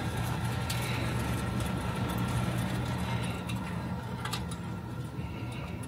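Electric sliding-gate operator running, a steady low motor hum as it drives the iron driveway gate along its track, with a few light clicks.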